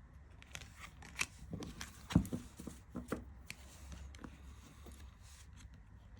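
Tarot cards being handled one at a time: light taps and soft slides of card stock, with a sharper tap about two seconds in.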